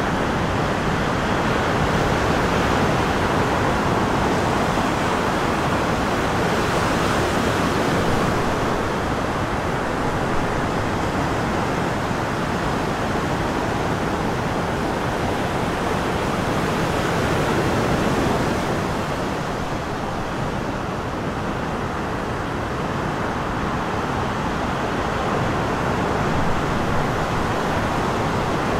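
Steady rushing of small breaking waves and surf washing in the shallows, mixed with wind.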